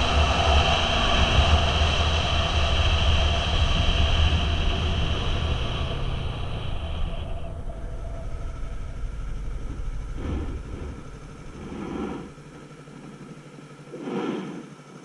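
Wind and road noise from a moving motorcycle, loud at first and dying away over the first half as the bike slows to a stop. After that it runs quieter, with a few short surges near the end as the bike moves off again.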